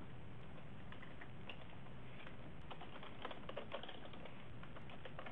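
Computer keyboard keys clicking in short runs of typing, faint over a steady low hum.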